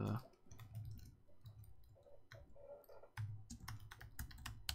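Typing on a computer keyboard: irregular keystroke clicks, coming quicker near the end.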